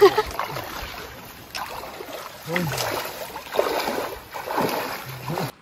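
Brook water rushing and splashing as someone wades across a ford, the splashing swelling and easing unevenly.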